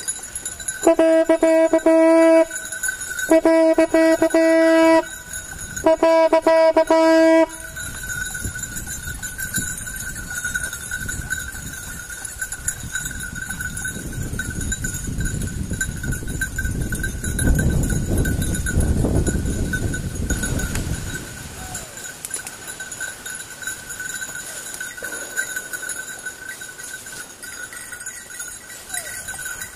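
Three blasts on a hunting horn, each about a second and a half long on one steady note with a fluttering quality. Then a low rumbling noise swells and fades about halfway through, with a faint steady high tone throughout.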